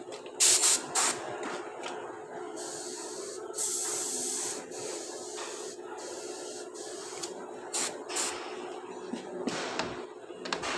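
Hissing spray of pressurised air or fluid in short bursts, with one longer burst of about two seconds, over a steady low hum.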